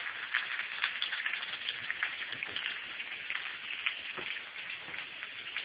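Sliced onion and bell peppers sizzling in hot bacon grease in a skillet: a steady hiss with many small pops.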